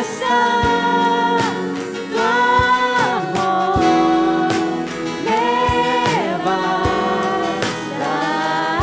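Christian worship song: singers hold long notes, sliding between them, over a band with a steady drum beat.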